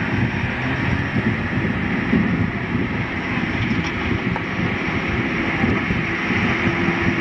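Wind rumbling on a camcorder microphone at the beach. A faint, steady engine drone joins in a little past the middle, likely the motorboat towing a banana boat.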